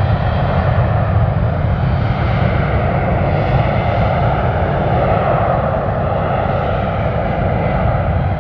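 Emirates Airbus A380's four jet engines at takeoff power as it climbs away just after liftoff: steady, loud jet engine noise with a deep low rumble.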